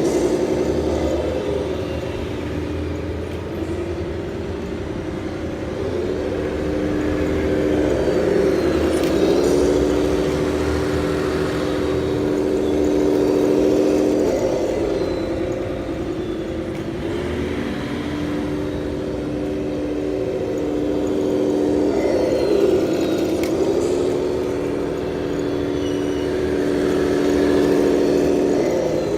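Simulated Scania R620 V8 truck engine sound from a model truck's electronic sound unit, pulling up through the gears: the engine note climbs, dips at each gear change, and climbs again, several times over. A turbo sound effect runs faintly above the engine note.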